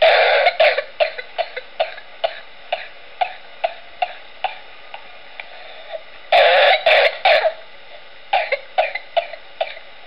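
A person coughing without a whoop: a long run of short coughs, about two a second, with louder bursts at the start, about six seconds in, and near the end. There is no whooping intake of breath between them, which marks it as a non-whooping cough. The recording sounds thin, missing its lowest and highest tones.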